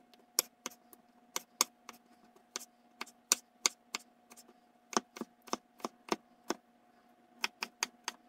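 Kitchen knife dicing peeled tomatoes on a wooden cutting board: a run of sharp taps of the blade on the board, about three a second, with two short pauses.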